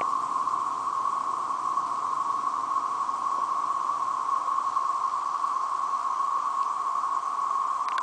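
A loud chorus of periodical cicadas (the 13-year brood) filling the woods: a steady, unbroken droning buzz pitched around one tone, with no rise or fall.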